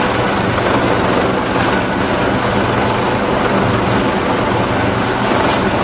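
Helicopter hovering close overhead: a loud, steady rotor chop over a dense rush of engine and rotor noise, with no let-up while it holds a hoist position over the ship.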